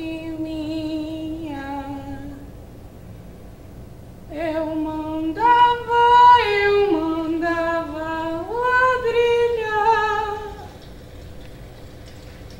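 A woman singing unaccompanied, with held notes that glide between pitches: a short phrase, a pause of about two seconds, then a longer, louder phrase.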